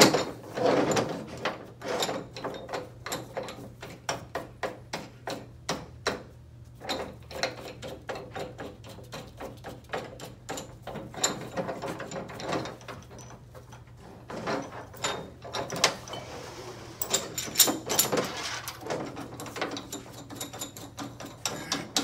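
Hand ratchet clicking in irregular runs, with metal clinks and knocks, as a bearing puller clamped on a CVT secondary pulley shaft is worked to draw the bearing off.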